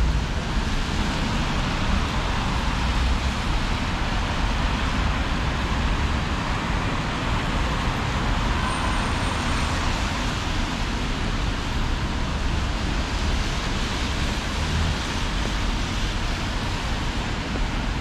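Steady road traffic noise with a low rumble from motor vehicles on a city street.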